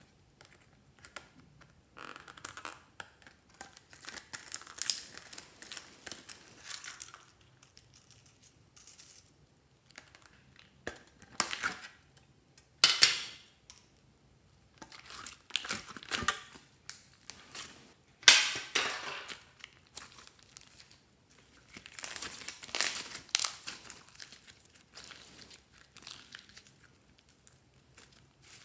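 Hands handling a tin pencil case and thick slime over a glass dish: irregular bursts of rattling, sticky crackling and squishing as plastic shell sequins are tipped out and the slime is pulled from the tin, with quiet pauses between.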